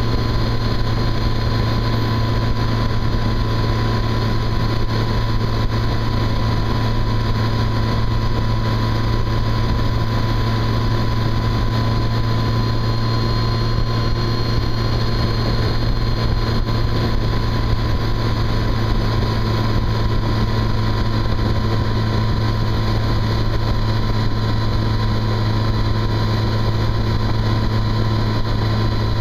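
Yamaha FJR1300 sport-tourer cruising at a steady speed: its inline-four engine drones at an even pitch, mixed with wind and road noise.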